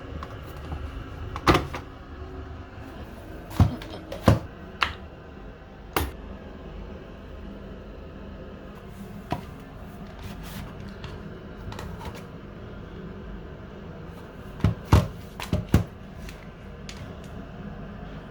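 A steady low hum with a scattering of sharp knocks and clicks, a cluster of them a little before the end.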